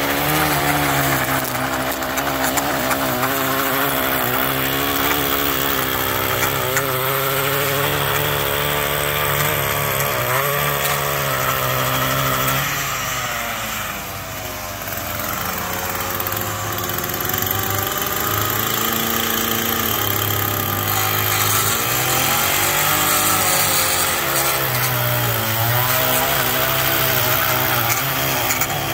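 Echo two-stroke string trimmer on a guide wheel, running at cutting speed while edging grass along a concrete path. Its engine note wavers with the throttle. About halfway through it drops back toward idle for a couple of seconds, then revs up again.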